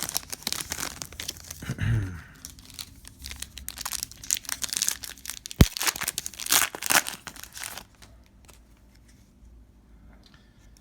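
A Donruss Optic Fast Break trading-card pack wrapper being torn open and crinkled, with a sharp click near the middle. The rustling stops about eight seconds in.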